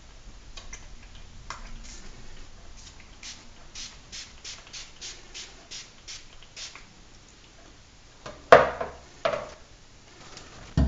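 Trigger spray bottle of cleaner spritzing about a dozen times in quick, even succession, each pump a short hiss, then two louder knocks a couple of seconds later.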